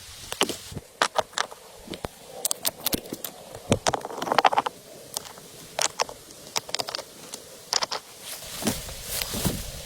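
A string of irregular sharp clicks and knocks, with a brief rustle about four seconds in.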